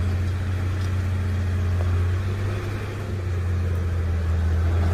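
Heavy construction-machine diesel engine running steadily at a constant low pitch.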